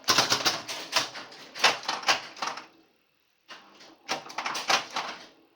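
Bally Space Time electromechanical pinball machine in play: a rapid, irregular run of sharp mechanical clacks and clicks, broken by a brief silent pause about halfway through, then more clacking.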